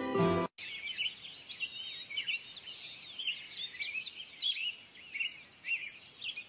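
Birds chirping, many short quick calls overlapping over a faint background hiss. A music cue cuts off about half a second in, just before the chirping starts.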